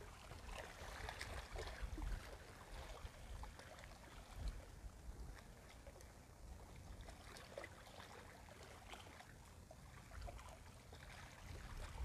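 Small waves lapping and splashing against the seawall rocks, with scattered small ticks and splashes over a wavering low rumble of wind on the microphone.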